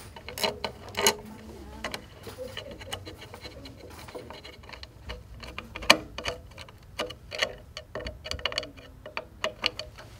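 Light, irregular clicks and taps of a screw and washer being driven into the plastic housing of a quilting frame's thread stand, with small plastic and metal parts being handled. The sharpest click comes about six seconds in.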